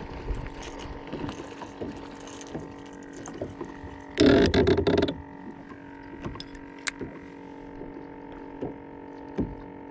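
Handling noises on a fishing kayak: scattered small clicks and knocks, and a loud rattling clatter lasting about a second about four seconds in, over a steady low hum.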